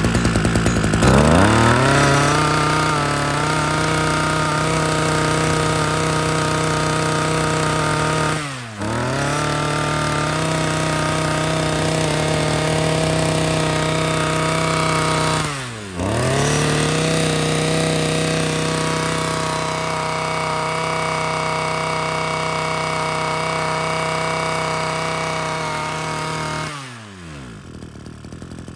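Komatsu Zenoah BCZ230 23cc two-stroke brush cutter engine revving up about a second in and held at full throttle with a steady high whine. The throttle is let off and opened again twice, and the engine drops back to idle near the end.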